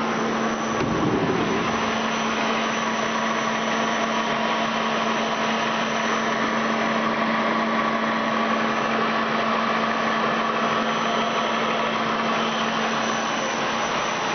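Ajax Premier 200 CNC lathe running with a steady machine hum and a constant low tone. A brief low thump comes about a second in.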